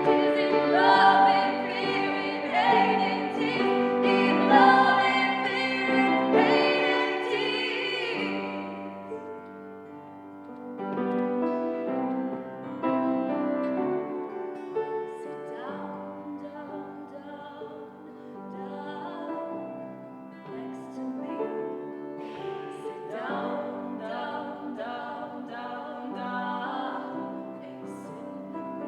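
A female vocal duo singing live in harmony with acoustic guitar. It is fuller and louder for the first eight seconds or so, then drops to a quieter, sparser passage.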